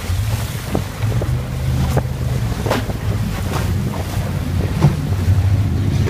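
Wind buffeting the microphone as a low rumble over a powerboat running through choppy water, with the hull slapping on waves and spray hitting several times.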